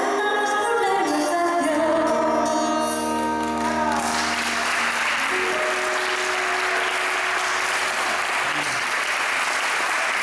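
An acoustic duo's song ends on a final sung note that slides down and stops about four seconds in. Audience applause then takes over and carries on.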